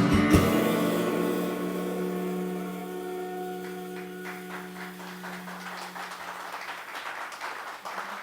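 A band's final chord, guitar included, struck once just after the start and left ringing, fading slowly over several seconds as the song ends.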